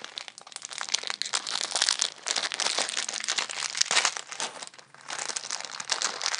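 Crinkly packaging rustled and crinkled in dense crackles as a C-clip is dug out, with a short lull about five seconds in.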